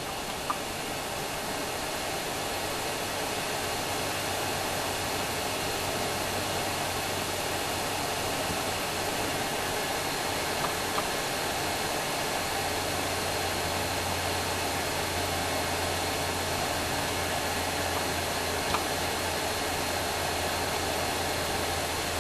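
Steady blowing hiss of an 853D hot air rework station's gun running, heated to just under 400 degrees for pressing in threaded inserts. A low hum joins about halfway through, with a few faint clicks.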